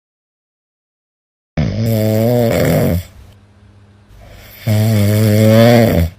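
A man snoring: two loud, drawn-out snores, the first starting about a second and a half in and the second near the end, with faint breathing between them.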